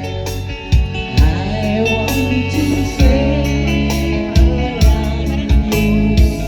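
Band-style music with a steady beat, bass, guitar and a sung melody.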